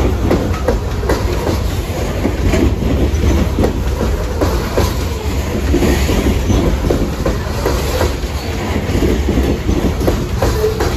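Freight train cars rolling past, their wheels clattering irregularly over the rail joints above a steady low rumble.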